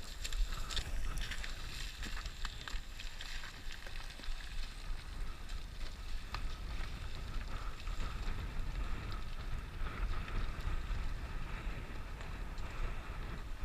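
Wind buffeting the microphone as a steady low rumble, with a few faint clicks and scuffs.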